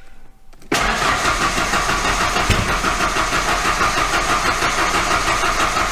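1991 Ford Ranger 2.3L four-cylinder engine cranking on the starter at a consistent, even rhythm but not catching, with a little backfire about two seconds into the cranking. The engine has no spark, so it does not even try to start.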